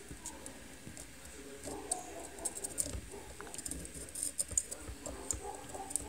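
Small, irregular clicks and ticks, coming thicker from about two seconds in, as a soldering iron tip works the metal pins of an HDMI connector being desoldered from a circuit board.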